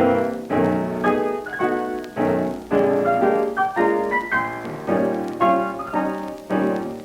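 Background piano music: a lively tune of struck notes and chords in quick succession.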